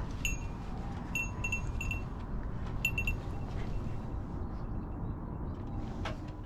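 Small bell on a dog's collar tinkling in short clusters of light rings as the dog moves, over a steady low rumble.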